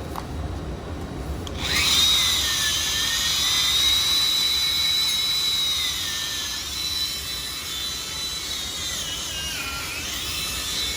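Angle grinder starting up about two seconds in and running on steel with a high whine. Its pitch sags as it is pressed into the work, most sharply near the end, then recovers.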